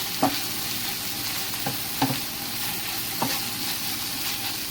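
Long-sliced onion with paprika, black pepper and salt frying in a little oil, sizzling steadily while it is stirred, with a spoon knocking against the pan four times.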